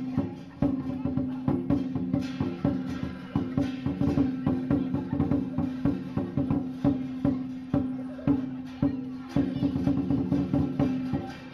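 Chinese lion dance percussion: a large drum beaten in a fast, steady rhythm with clashing cymbals and a gong.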